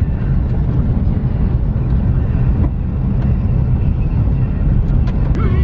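Steady low rumble of a moving car heard from inside the cabin: engine and road noise, with a few faint clicks near the end.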